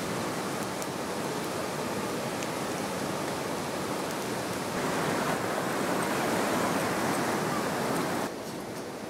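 Mountain creek rushing over rocks: a steady rush of water that drops a little near the end.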